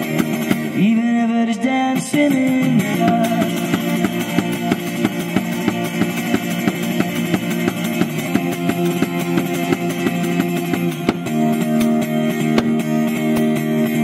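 Live acoustic guitar strummed to a steady beat kept with foot-operated percussion, with a voice singing a short gliding line about a second in.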